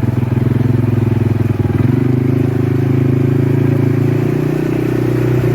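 Small vehicle engine running steadily at low revs, its note shifting slightly about two seconds in.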